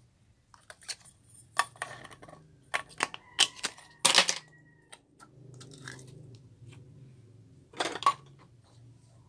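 Slime being squeezed and worked by hand, giving a run of sharp wet clicks and pops, with the loudest bursts about four seconds in and again near eight seconds.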